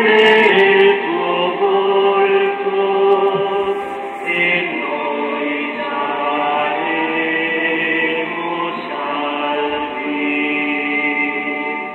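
Slow liturgical chant sung by church voices, with long held notes. It is picked up by a wireless microphone and heard through an FM radio receiver, so it sounds thin, with no high treble.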